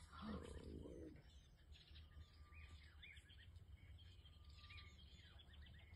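Near silence with faint bird chirps: short, arched calls recurring every second or so, with an occasional thin whistle, over a steady low rumble. A brief muffled sound comes at the very start.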